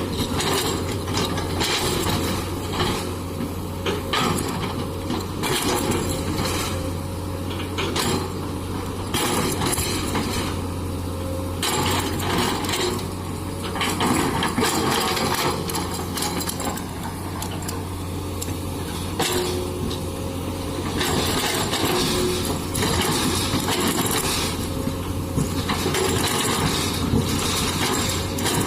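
Komatsu PC200 excavator's diesel engine running steadily while it works, with frequent clanks and rattles over the engine hum.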